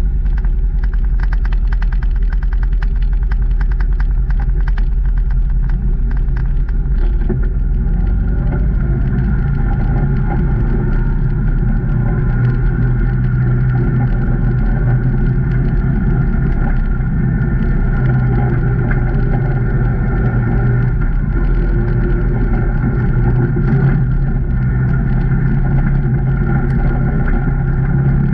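Can-Am Maverick Trail 800's V-twin engine running steadily as the side-by-side drives along, its hum holding an even pitch and growing a little fuller about a third of the way in. Rapid clicking sits over it through the first few seconds.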